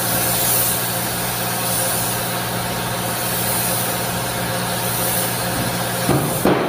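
Compressed-air paint spray gun hissing as base coat is sprayed onto a car bumper, the hiss swelling and easing with each pass, over a steady machine hum. A few knocks near the end.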